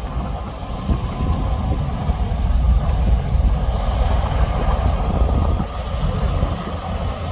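Heavy diesel earthmoving machinery running at work, a deep, steady engine rumble that grows louder about a second in.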